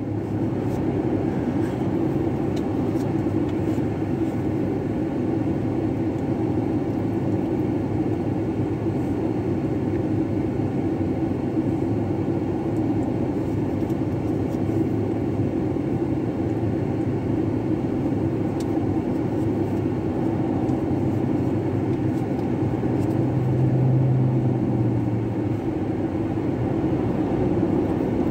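Steady low rumble heard inside a stopped car: its engine idling and traffic passing on the road in front. A heavier passing vehicle makes the low hum swell briefly near the end.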